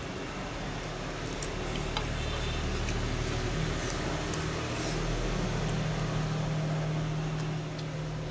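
A steady low mechanical hum, growing a little louder in the middle and easing off near the end, with a few faint clicks of chopsticks against a bowl.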